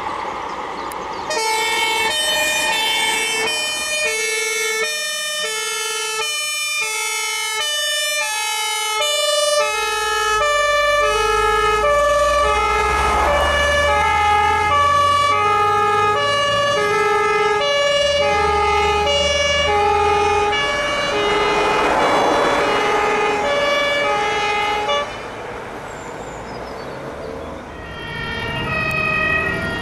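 A fire engine's two-tone German Martinshorn sounding, switching back and forth between two notes as the truck passes on an emergency run, with the truck's engine rumbling underneath in the middle stretch. The horn cuts off a few seconds before the end, and a horn is heard again faintly near the end.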